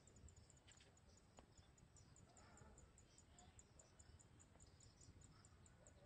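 Near silence, with faint high insect chirps repeating evenly about three times a second over a low background hum.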